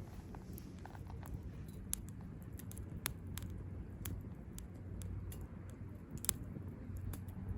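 Small wood fire crackling in a compact Firebox Stove: irregular sharp pops and snaps, with the loudest pop about six seconds in.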